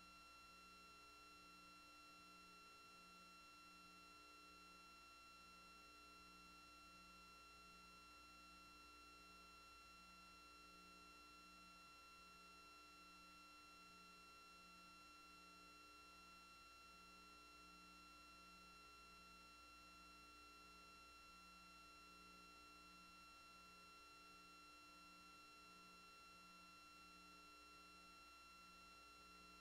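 Near silence: a faint, steady electronic hum with a few constant high tones, and a low tone that pulses a little more than once a second.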